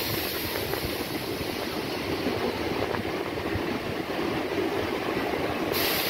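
Electric suburban local train (EMU) running along a station platform: the steady rumble and rattle of its wheels on the rails, heard from inside the coach at the open door. A brighter hiss rises near the end.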